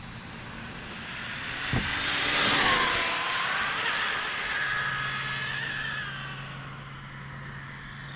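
Stretched Arrma Typhon RC car's brushless electric drivetrain at full throttle, making a pass at about 120 mph. A high whine builds, peaks about two and a half seconds in, drops in pitch as the car goes by, and fades as it speeds away down the road.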